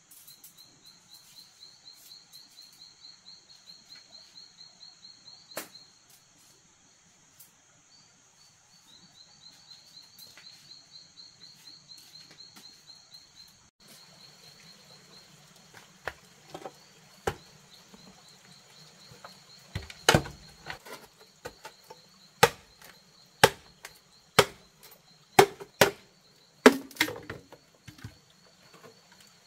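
Night insects chirping in fast pulsed runs. In the last third, a blade chops into a green bamboo tube, with sharp strikes about once a second that are the loudest sounds.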